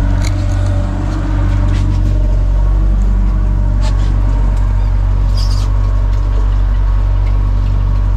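The boat's engine running steadily with a low drone, with a few short clicks and knocks from gear on deck.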